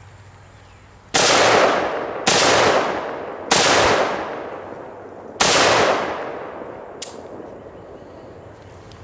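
Four semi-automatic shots from an ATI AR-15 pistol, the first three about a second apart and the fourth after a slightly longer pause, each followed by a long fading echo. A faint sharp click comes after the last shot.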